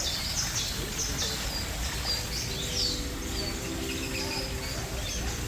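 Small birds chirping, many short high chirps and quick slurred notes a second in a steady stream, over a steady low background rumble.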